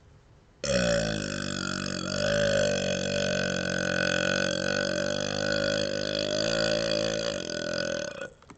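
A man's single long burp, starting about half a second in and held for about seven and a half seconds at a fairly steady pitch before cutting off near the end.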